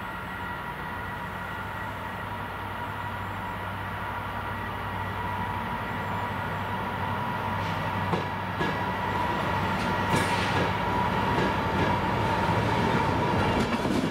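A Transport for Wales passenger train approaches through the station and runs past close by, growing steadily louder. From about halfway in, wheels click over the rail joints as it nears.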